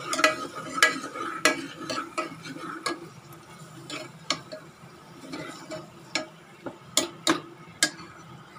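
Steel spoon scraping and clinking against the metal sides of a pressure cooker as onion masala with ginger-garlic paste is stirred and fried in oil. The clinks are irregular, about one or two a second, with a few sharper ones close together near the end.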